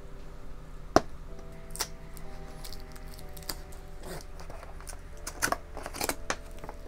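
A small boxed toy's cardboard box and plastic packaging being opened by hand: a sharp click about a second in, then scattered crinkles and taps. Soft background music with held notes plays underneath.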